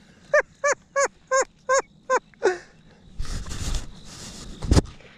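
Geese honking: about six short calls in quick succession, then a fainter one. Rustling follows, and a single loud knock comes near the end.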